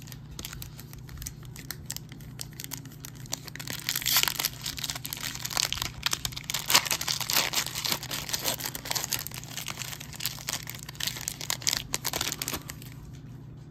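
Foil trading-card pack wrapper crinkling and tearing as a Donruss Optic football retail pack is ripped open: a dense run of crackles, heaviest in the middle, that stops about a second before the end.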